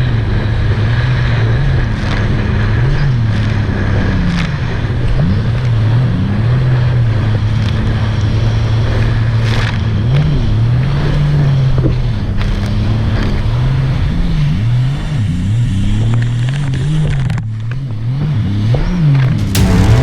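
Sea-Doo 300 personal watercraft with a supercharged three-cylinder Rotax engine and free-flow exhaust running under way, its pitch rising and falling again and again as the throttle is worked, with a short drop in level near the end.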